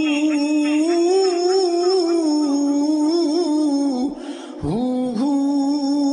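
Sufi devotional song: a singer holds long, slowly bending notes on 'Allah' over a steady drone. About four seconds in, the music briefly drops out and the voice slides back in on 'Allah'.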